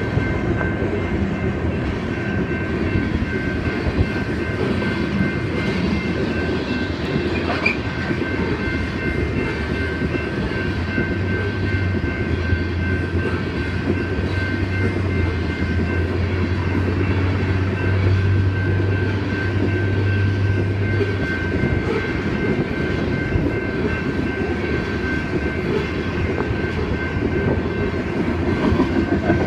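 Loaded coal gondolas of a long freight train rolling steadily past close by: a continuous heavy rumble of wheels on rail with a light clickety-clack and a few faint knocks, and thin steady high tones running through it.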